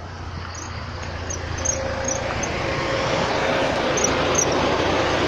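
A motor switched on in the UAZ Patriot and spinning up: a rushing noise that grows louder over the first few seconds. A steady hum sets in under two seconds in, with a few faint high chirps.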